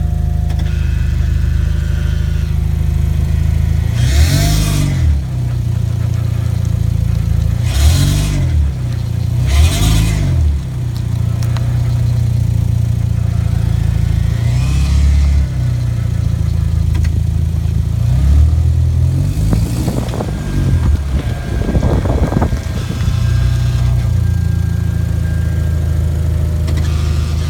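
Engine of a 2013 Hyundai Genesis Coupe with an 8-speed automatic, running steadily with several brief rises and falls in revs. The car is being recorded for unexplained noises that the owner links to the automatic.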